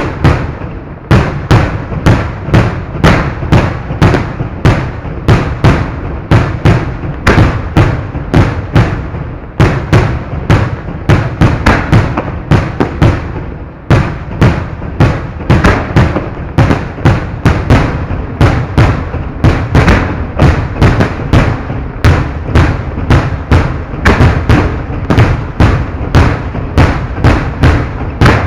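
Fireworks display heard from close to the firing site: a continuous rapid barrage of loud detonations, about three a second, with brief lulls about a second, nine and a half seconds and fourteen seconds in.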